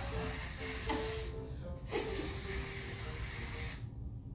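A man blowing long hissing breaths through cupped hands, a vocal imitation of a balloon being inflated. Two blasts, the second stopping shortly before the end.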